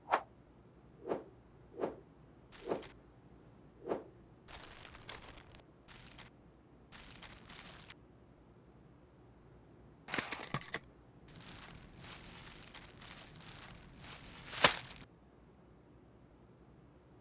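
Packaging being handled: several dull knocks a second or so apart, then stretches of crinkling and rustling, a quick flurry of clicks, and one louder sharp knock near the end.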